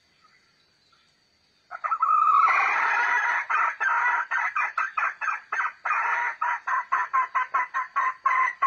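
Chicken calling loudly: one drawn-out note, then a long run of short clucking notes, about four a second, coming faster toward the end.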